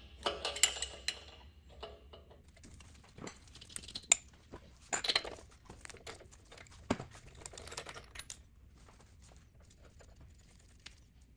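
Wrenches clinking and scraping on the cylinder of a Lycoming O-320 aircraft engine as a spark plug is loosened and pulled: scattered metallic clicks and knocks, busiest in the first second or so, then again around the middle, growing sparse near the end.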